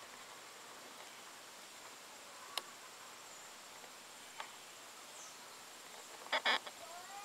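Faint outdoor ambience with a steady high insect trill, broken by two sharp clicks and a short, louder rasp about six seconds in.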